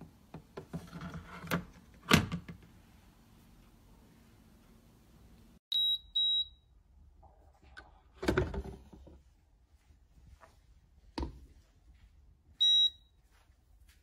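SAKI Turkish coffee maker beeping: two short beeps about six seconds in and a single beep near the end, high and clear. Between them are sharp clunks of the metal coffee pot knocking against the machine, the loudest a few seconds in.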